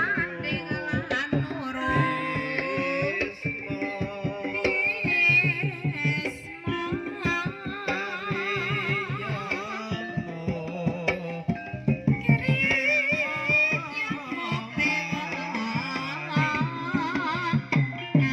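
Javanese gamelan music for ebeg, with quick hand-drum strokes and a singer's wavering, vibrato-laden melody over the ensemble.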